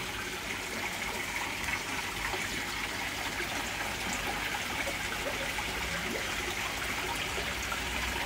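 Steady trickle and splash of running water in a koi pond, with an even level throughout.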